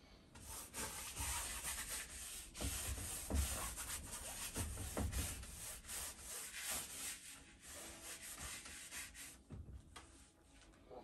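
A wide flat paintbrush scrubbing paint onto stretched canvas in repeated back-and-forth strokes, a dry scratchy rubbing. The strokes die away about a second and a half before the end.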